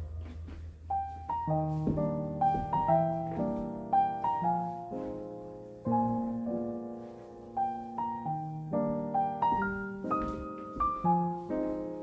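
Background music: a light piano waltz, its notes struck and fading one after another.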